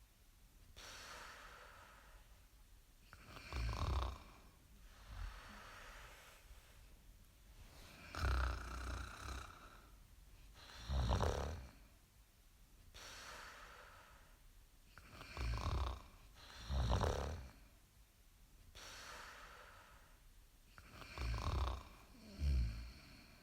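Snoring: rasping snores with a low rattle, a breath cycle about every five or six seconds, some snores coming in quick pairs, with quieter airy breaths between them.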